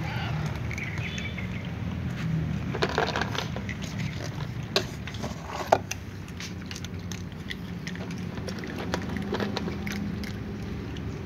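A cat chewing dry kibble: irregular crisp crunches and clicks.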